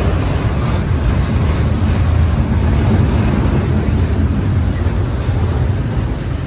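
CPKC freight train's intermodal cars rolling past: a steady, loud rumble of wheels on rail.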